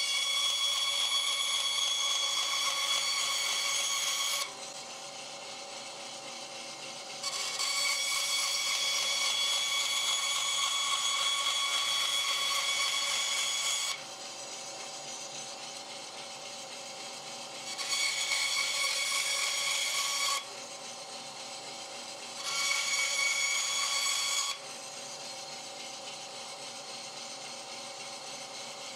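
Bandsaw cutting a printed circuit board panel into small boards: four stretches of a louder, high-pitched cutting whine as the blade goes through the board, with the saw running freely in between.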